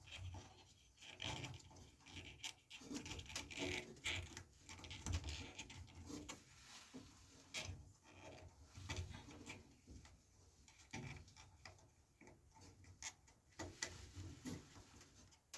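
Scattered small clicks, taps and rubbing from hands working on wiring and tools inside an air conditioner's electrical compartment, as capacitor leads are put back on after a capacitor reading.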